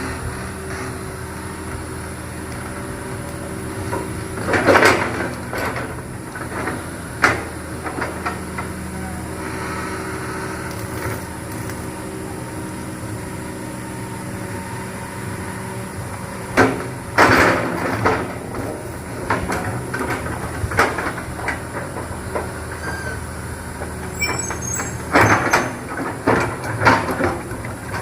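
Excavator's diesel engine running steadily, with several loud bursts of clanking and scraping as it works.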